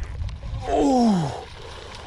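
A man's wordless exclamation, a drawn-out "ooh" falling in pitch, about a second in, over a low rumble of wind or handling on the microphone.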